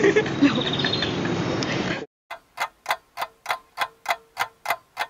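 About two seconds of noisy room sound that cuts off abruptly. Then a run of evenly spaced, clock-like ticks, about three and a half a second, with a faint steady tone under them.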